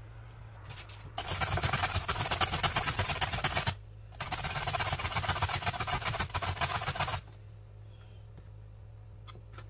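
Cabbage and carrot being grated on a stainless steel box grater: rapid rasping strokes in two runs of about two and a half and three seconds, with a short pause between them, over a low steady hum.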